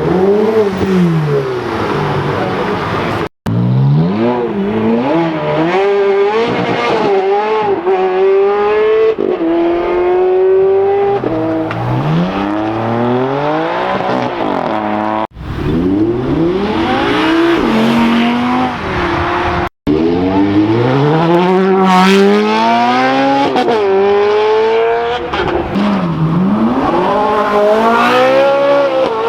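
Supercar engines revving hard and accelerating, in four short clips cut together; the engine pitch repeatedly climbs and falls.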